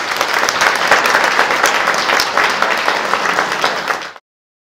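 Audience applauding: many hands clapping in a dense, even patter that cuts off suddenly about four seconds in.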